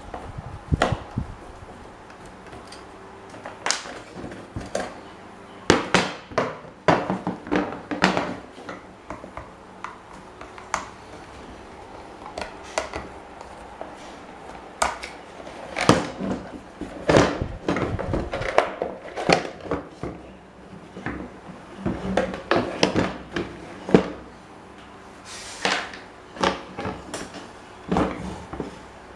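Irregular knocks, clicks and clanks of hand tools on metal parts, coming in uneven clusters with quieter handling noise between them, plus a brief hiss about three-quarters of the way through.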